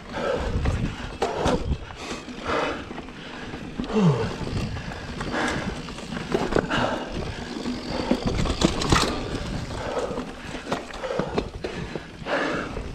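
Mountain bike ridden over a rough dirt trail: tyre noise and the rattle of the bike, with irregular sharp knocks over bumps and a low rumble that comes and goes.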